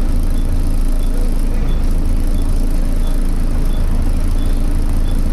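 Volvo B7TL double-decker bus's six-cylinder diesel engine and cooling fan running, heard from inside the passenger saloon as a steady low rumble. A faint high tick repeats about once every 0.7 s.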